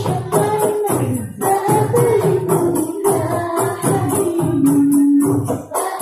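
Girls' voices singing a sholawat melody in qasidah style over frame drums and tambourine beaten in a quick, even rhythm, about four to five strokes a second. Near the end the voices hold one long low note.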